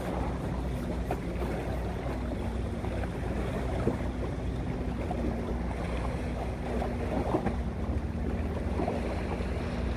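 Steady low hum of a small boat's motor, with wind noise on the microphone and a few light knocks.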